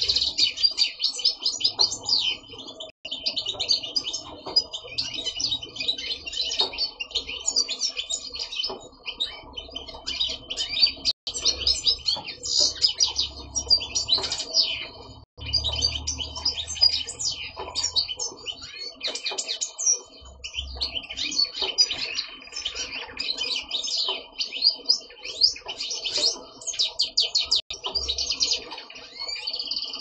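Male European goldfinch singing: a long, fast twittering song of quick chirps and trills, broken only by a few short pauses.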